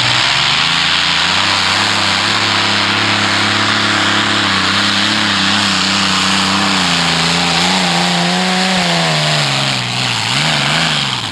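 A modified pulling tractor's engines run at full power under load with a loud, steady, raspy note. Near the end the pitch wavers and sags, picks up briefly, then the sound cuts off abruptly.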